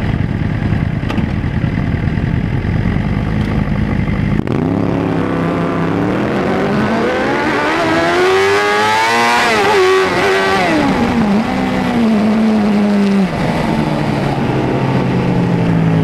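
Suzuki GSX-R750 inline-four engine rumbling at idle, then pulling away hard about four and a half seconds in. Its pitch climbs steadily to a high rev before dropping in steps as the throttle comes off. It holds a level drone, then falls to a lower, easier note near the end.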